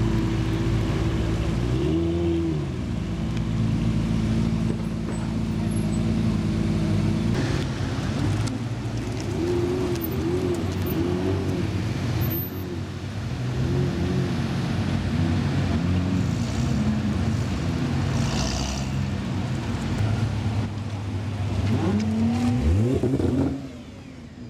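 Nissan GT-R R35 twin-turbo V6 engines idling, with a series of quick throttle blips that rise and fall in pitch. One bigger rev sweeps up and back down near the end, then the sound drops off suddenly.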